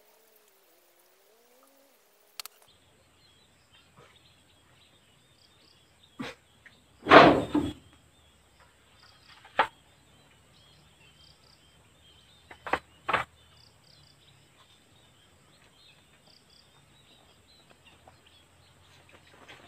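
A few sharp knocks and one louder thump about seven seconds in, with faint bird chirps repeating in the background.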